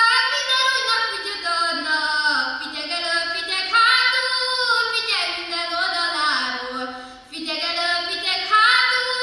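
A young woman singing a Kalotaszeg Hungarian folk song unaccompanied, in long held phrases that bend between notes, with a short breath between phrases about seven seconds in.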